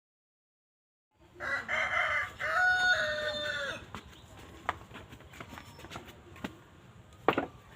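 A rooster crowing once, a long drawn-out call, followed by a few scattered sharp clicks and a louder knock near the end.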